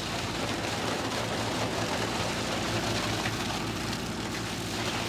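Grape harvester's engine running steadily under a rushing, rain-like patter of grapes and juice pouring from its raised bin into a truck's bins.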